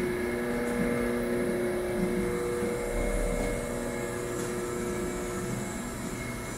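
1998 Haas VF-4 CNC vertical mill running, its spindle turning an end mill that cuts a cylindrical workpiece held on the fourth-axis rotary table. A steady machine hum with several held tones that shift partway through as the cut goes on.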